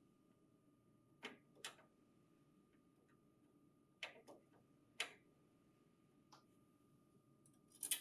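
A handful of short, sharp clicks and taps against a near-silent background: a metal mounting bracket being fitted to the printer. The clicks come in a pair, another pair, a single one and a last one near the end.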